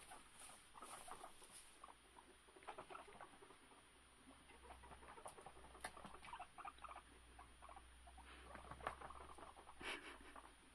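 Guinea pigs scampering about, their paws pattering on the floor in quick, irregular runs of light taps.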